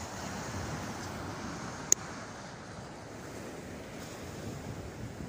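Steady wash of sea surf on the beach, with wind on the microphone. A single sharp click about two seconds in.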